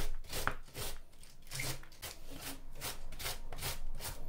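Handheld cabbage shredder being drawn back and forth across a head of white cabbage, each stroke rasping as the blade slices off thin shreds, in a quick steady rhythm.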